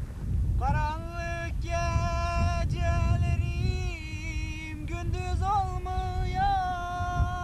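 Music: a melody of long, held, slightly wavering notes, each about a second, entering about half a second in, over a steady low rumble.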